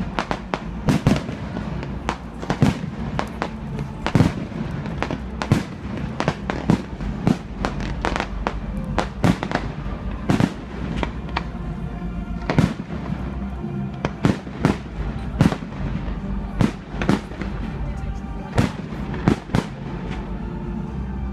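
Aerial firework shells bursting in quick, irregular succession, two or three sharp bangs a second, with music playing underneath.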